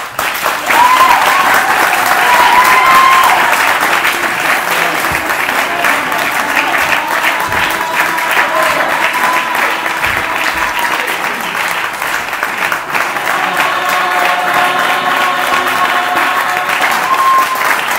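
Audience clapping and applauding, starting about half a second in and going on steadily, with some voices rising above the clapping.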